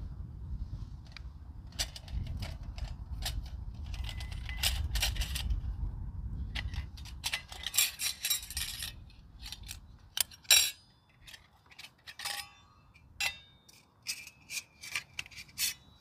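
Nested stainless-steel parts of a compact camping wood stove being handled, pulled apart and set down: a string of metal clinks, scrapes and light knocks, some ringing briefly. A low rumble lies under the first half.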